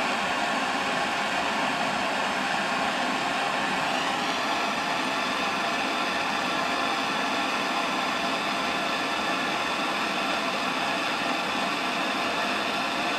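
A blower running with a steady whirring hiss; its tone shifts slightly about four seconds in.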